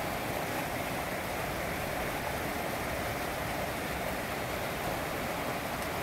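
Mountain river rushing over granite boulders: a steady, unbroken roar of whitewater.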